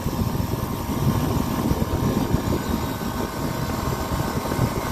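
Copeland digital scroll compressor running with a steady mechanical drone while its solenoid valve cycles the scrolls between loaded and unloaded to throttle capacity. The noise is normal for a digital scroll, not a sign of a faulty compressor.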